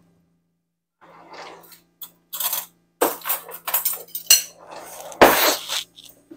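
Kitchen utensils clinking and clattering as a cutlery drawer is rummaged through, with dishes knocking; the loudest clatter comes about five seconds in.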